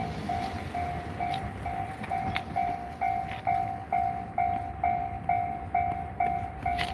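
Japanese railway level-crossing warning bell ringing, an electronic ding repeating about twice a second: the signal that a train is coming and the barrier is down.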